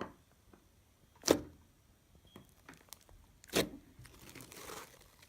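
Fluffy, stretchy slime being stretched and squeezed in the hands, giving three sharp pops over soft handling noise. The loudest pops come about a second and about three and a half seconds in.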